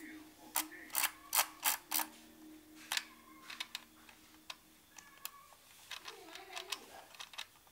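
An MX5500 hand-held price labeller's red setting knob being turned, its print bands ratcheting with a string of sharp clicks. The clicks are strongest in the first three seconds, then lighter and more spread out.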